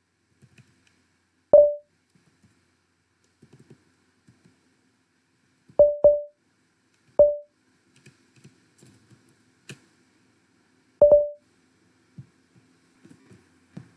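Terminal bell beeping five times, each a short pitched beep, as a bash reverse-i-search finds no match, with faint keyboard clicks of typing in between.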